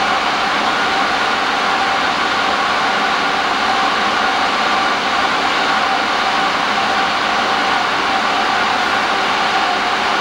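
Diesel locomotive engine running steadily, a constant hum with a faint steady whine over it; the level does not change.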